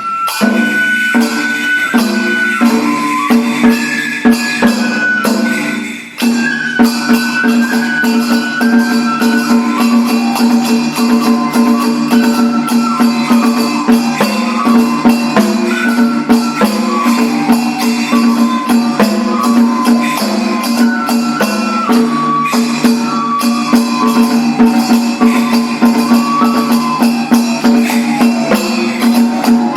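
Japanese daikagura ritual music starting up for the bell dance: a high flute melody over steady drumming and jingling percussion, with a brief break about six seconds in.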